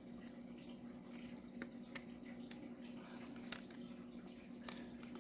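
Faint, steady low hum with a few soft, sharp clicks spaced irregularly through it, from hands handling an action camera and its rubber casing.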